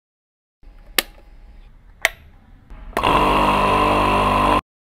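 Two sharp clicks from the electric pressure washer's rocker switch, then its motor and pump start and run with a loud, steady buzz, cut off suddenly after about a second and a half.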